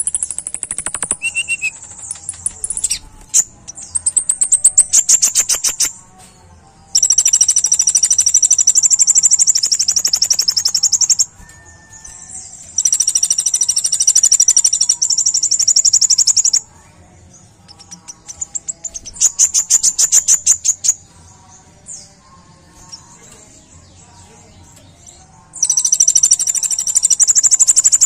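Kolibri ninja (konin) sunbird singing: very high, sharp, rapid-fire trills in phrases of one to four seconds, with short pauses between them.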